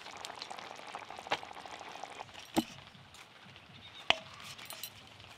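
A few light knocks and clinks from a stainless steel bowl while dough is pulled into portions in it, one knock leaving a short metallic ring, over a faint steady background hiss.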